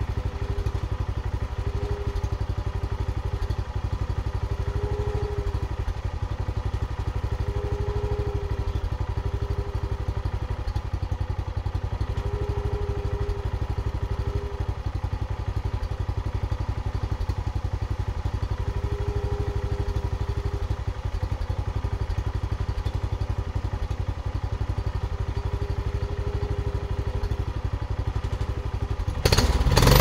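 Viel portable bandsaw mill's gasoline engine running steadily at low speed. Shortly before the end it suddenly gets much louder.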